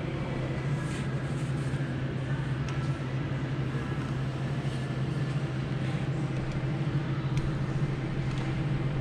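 Steady low hum with a constant background din, the room tone of a large shop interior, with a few faint ticks.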